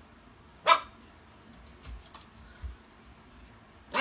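A Siberian husky puppy gives one short, sharp bark about a second in, then a few faint soft thumps, and a second bark starts right at the end.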